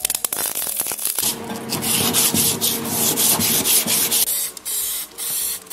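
MIG welder running a bead along a sheet-metal seam, a loud steady crackle with many sharp pops. About four seconds in it breaks into three short bursts of the same rough noise.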